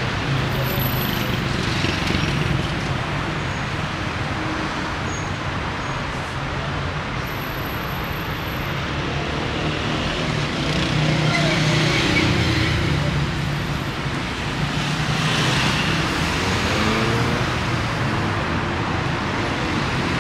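Street traffic: a steady wash of car engines and tyre noise, swelling louder as vehicles pass about halfway through and again a few seconds later.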